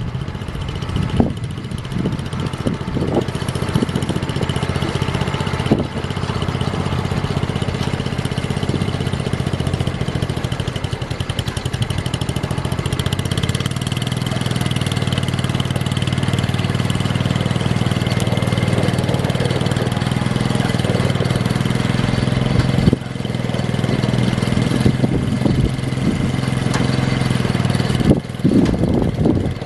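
Small garden-tractor engine running steadily.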